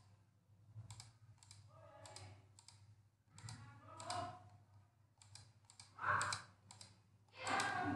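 Light computer input clicks at uneven spacing, about a dozen, as characters are entered one by one into CNC programming software. A few soft voice murmurs come between them, the loudest about six seconds in and again near the end.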